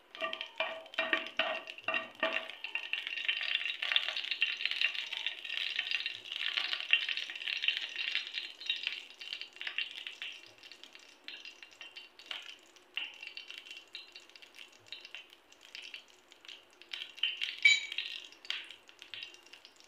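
Mustard seeds spluttering in hot oil in a nonstick pan, the first step of a South Indian tempering. It is a dense crackle of small pops that thins to scattered pops after about ten seconds, with a louder cluster of pops near the end.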